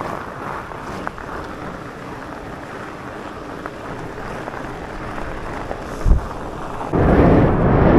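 Electric mountain bike being ridden on a gravel road: tyres rumbling over the gravel with wind on the microphone, one bump about six seconds in, and the noise growing much louder about seven seconds in.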